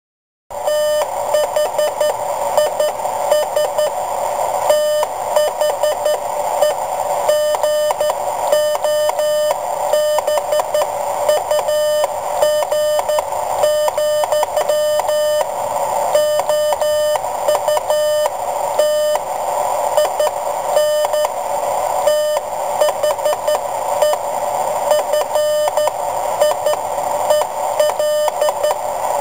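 Morse code sent on a semiautomatic 'bug' key: a single mid-pitched CW tone keyed on and off in dits and dashes over a steady hiss, starting about half a second in.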